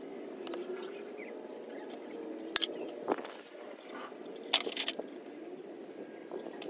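Scissors and pruning shears clicking and snipping while cutting fibrous bonsai roots: a few sharp clicks, with a quick run of them about two-thirds of the way in, over a steady low background hum.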